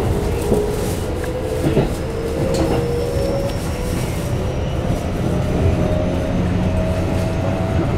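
Keikyu New 1000 series electric train heard from inside the car: the Toshiba IGBT VVVF inverter and traction motors whine with a pitch that climbs slowly as the train accelerates, over a steady rumble of wheels on rail with a few light knocks.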